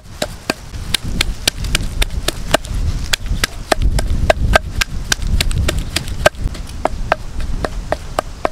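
Wooden pestle pounding chillies and garlic in a mortar: a steady run of sharp knocks, about three a second.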